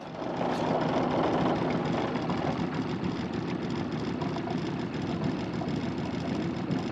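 Boat's outboard motor running steadily, heard from on board, fading in at the start.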